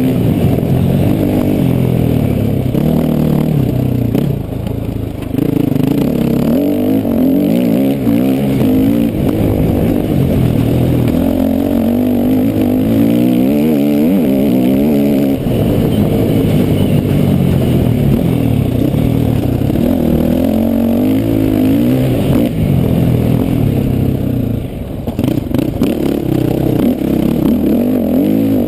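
Motocross bike engine heard from on board, revving up and falling off again and again as it is ridden around a dirt track. The throttle drops off briefly about four seconds in and again near the end.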